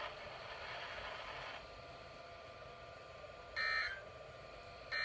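Emergency Alert System end-of-message data bursts: two short, identical buzzing digital bursts about 1.3 seconds apart, marking the end of a Required Weekly Test. Before them a radio hiss cuts off about a second and a half in.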